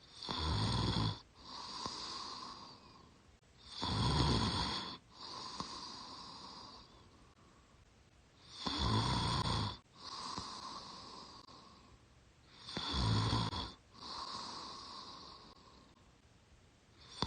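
A young woman snoring in her sleep while breathing through her mouth. Four loud snores about every four seconds, each followed by a softer breath out.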